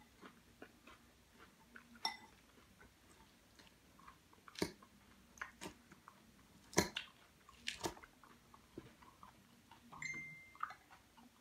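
A person eating salad: chewing and crunching leaves, with a run of short sharp clicks from a fork working in the bowl, and a brief squeak near the end.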